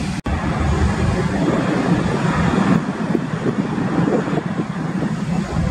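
Airbus A320 jet engines running as the airliner rolls along the runway: a steady, loud rumbling roar, broken by a brief dropout just after the start.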